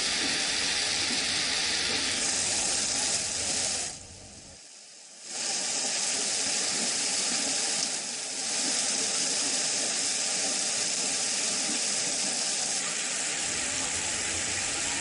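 Heavy rain pouring down in a steady hiss, with floodwater running through a street. The sound drops away briefly about four seconds in, then returns.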